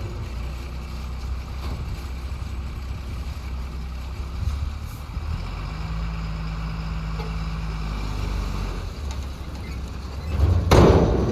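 Heavy diesel engine running steadily, with a short, loud rushing burst of noise near the end.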